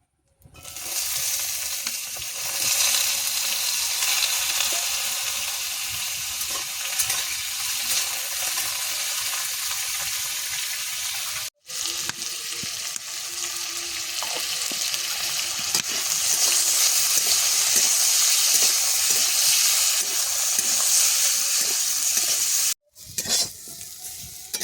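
Turmeric-coated potato pieces frying in hot oil in a pan, a steady sizzle with a spatula stirring and scraping through them. The sound drops out briefly twice, about halfway and near the end.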